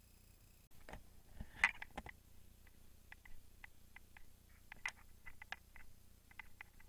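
Footsteps on stone steps: shoes tapping and scuffing on the stone in short, irregular ticks, two or three a second, with a few louder knocks about a second in.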